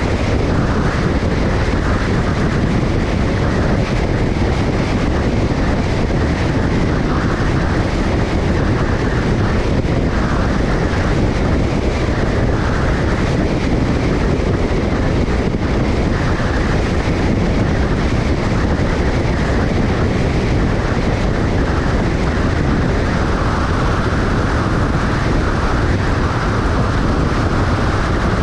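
Steady road and wind noise of a vehicle travelling at highway speed.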